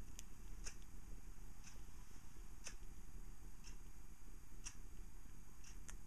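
Soft, sharp ticking at an even pace of about one tick a second, over a low steady rumble.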